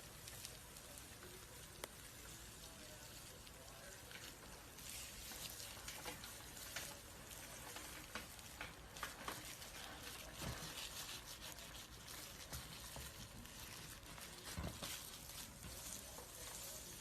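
Faint dry crackling and rustling of a snake's skin peeling away as it sheds, with scattered small crackles, a few sharper ones in the middle and again near the end.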